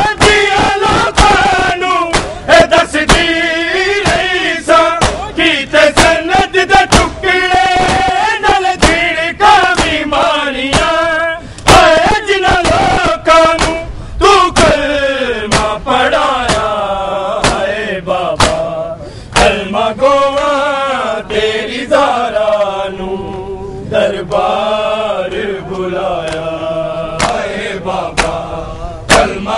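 A group of men chanting a noha, the Shia lament, in a rhythmic call, over the sharp repeated slaps of a crowd of mourners beating their chests in matam.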